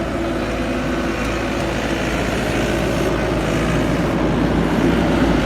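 Skid steer engine running steadily as the machine is driven, growing a little louder toward the end.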